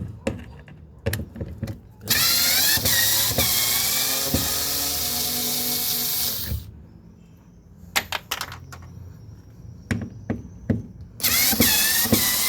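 Electric drill-driver backing out the screws that hold a twin-tub washing machine's spin transmission. It runs in two bursts, one of about four seconds starting some 2 seconds in and another near the end, its pitch rising as it speeds up. Light clicks and knocks of tool and screws come in between.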